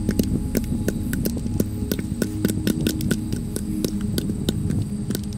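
Dried corn being shelled by hand, two cobs rubbed together so that kernels break off and drop with many quick, irregular clicks, several a second, into an upturned helmet. A steady low hum runs underneath.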